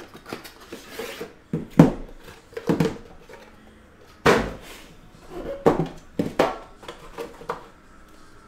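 A cardboard sleeve slid off a metal trading-card tin, then the tin handled with a series of knocks, the loudest about two seconds in and again about four seconds in, and its lid lifted off.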